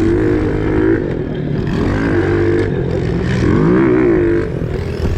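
Pit bike engine revving up and down as the bike is ridden, its pitch rising and falling several times.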